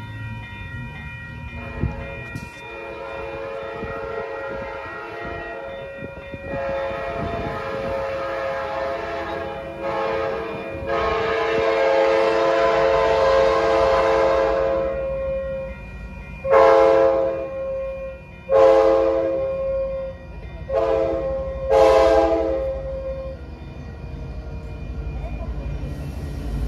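Air horn of an approaching Coaster F59PHI diesel locomotive sounding a series of chord blasts for the grade crossings. The horn is faint at first, grows louder, gives its longest blast about halfway through, then four shorter blasts. The locomotive's low diesel rumble grows near the end as the train nears.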